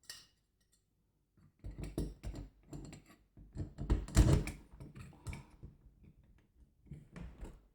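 Irregular knocks and clunks of a door handle and latch being handled and fitted on an interior door, the loudest about halfway through.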